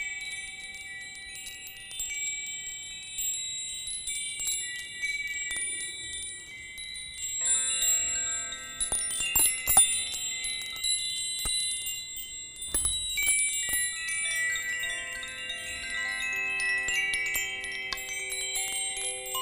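Hand-held wind chimes gently shaken and ringing. At first only a small, very high, fine-toned metal chime tinkles. From about a third of the way in, lower chimes join, a bamboo-bodied Koshi chime and a copper-tube wind chime, their tones overlapping and ringing on.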